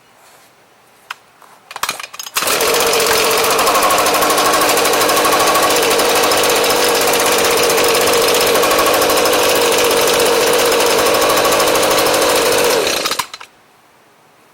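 Echo ES250 blower's small two-stroke engine starting abruptly after a few clicks, running steadily for about ten seconds with a buzzing tone, then cutting off suddenly.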